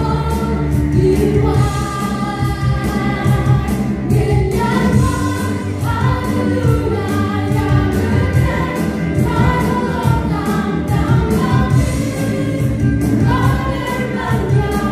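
Live gospel praise-and-worship song: several women singing together over a band of drum kit, bass guitar and acoustic guitar, with a steady beat.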